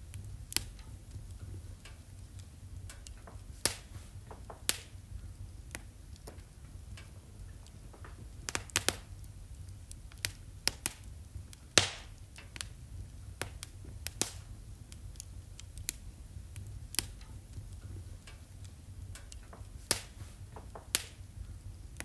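Wood fire crackling in a fireplace: irregular sharp pops and snaps, the loudest near the middle, over a low steady rumble.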